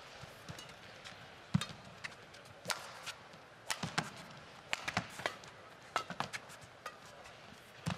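Badminton rally: sharp racket strikes on the shuttlecock at irregular intervals of about a second, mixed with quick clicks and squeaks of players' shoes on the court, over a faint hall ambience.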